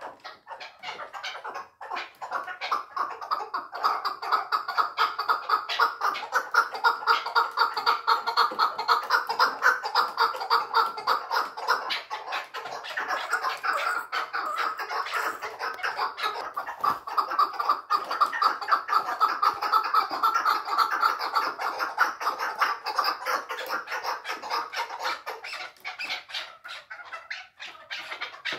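Caged chukar partridge calling: a long unbroken run of rapid, evenly repeated clucking notes.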